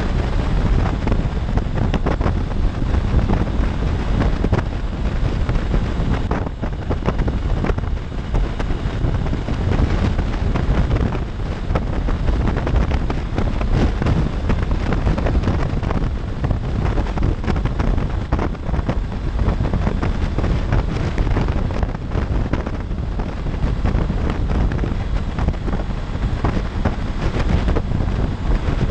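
Steady wind rushing over the camera microphone of a 2016 Honda CB500X motorcycle at freeway speed, with a low road and engine rumble underneath.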